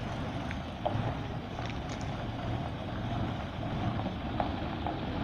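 Diesel engine of a large private bus running as the bus moves off slowly, a steady low drone with a few faint clicks.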